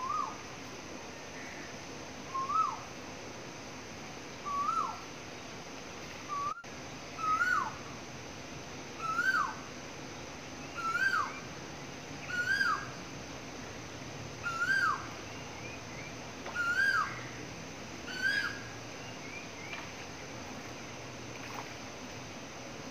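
A bird calling over and over: a single whistled note that rises then drops, repeated about every one and a half to two seconds, each call a little higher and louder than the last, stopping a few seconds before the end.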